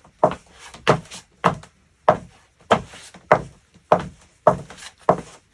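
Foley footsteps performed with a single shoe on a wooden surface: a steady walking pace of nine knocking steps, about one every 0.6 seconds.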